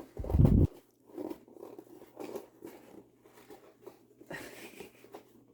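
Cardboard box being handled and pried at: a loud low thump about half a second in, then scattered crinkling and scraping of the cardboard flap, which is held shut by tape.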